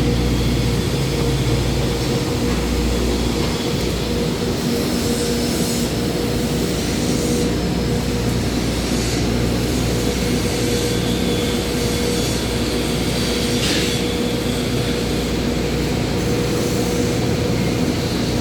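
Steady machinery drone in a metalwork shop: a constant hum with a low rumble and no pauses.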